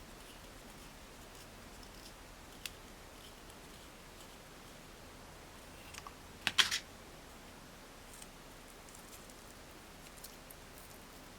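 Small sharp clicks from handling craft tools and materials over quiet room tone, loudest a quick cluster of about four snips a little past the middle.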